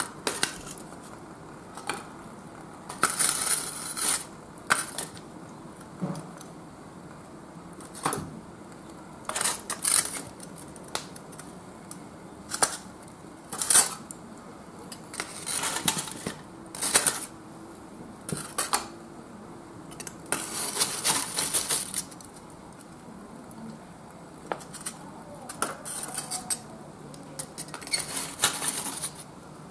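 Metal tongs gripping and shifting lumps of Oga binchotan charcoal inside foil-wrapped chimney starters: hard pieces clink against each other and against the tongs and metal, in irregular single clinks and short clattering runs.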